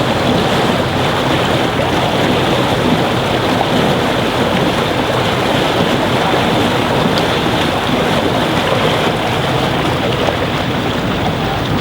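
Steady rushing noise of water and wind around a steamboat, with wind buffeting the microphone.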